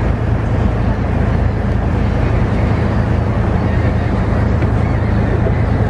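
Steady engine drone of the Hotaluna water bus heard aboard while cruising, a constant low hum under a wash of water and wind noise.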